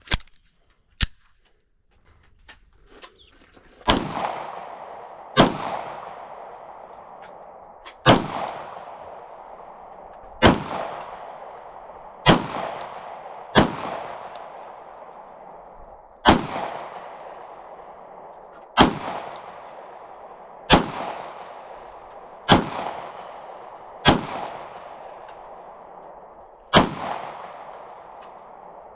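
Glock 17 9mm pistol fired slowly, about a dozen single shots a second or two apart, each followed by a long ringing echo. A couple of light clicks come before the first shot.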